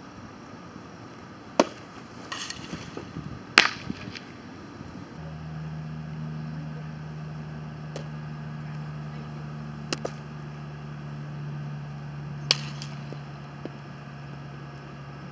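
Sharp pops of a softball smacking into leather fielding gloves, a few seconds apart, the loudest about three and a half seconds in. A steady low hum sets in about five seconds in.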